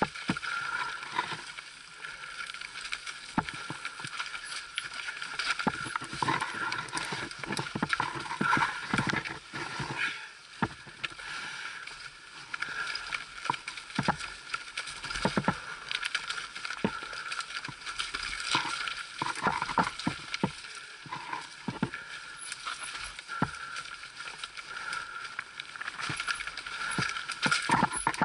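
Mountain bike descending a rough, wet, rocky trail: a steady rush of tyres over dirt, broken all the way through by irregular knocks and rattles as the bike hits roots and stones, picked up by a camera mounted on the bike.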